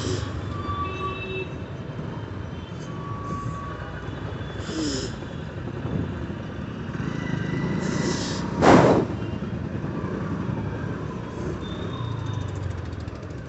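Traffic in a slow jam heard while riding a scooter through it: a steady rumble of idling and creeping vehicles, with a few short high tones. About nine seconds in comes a loud, short burst of hiss, the loudest sound in the stretch.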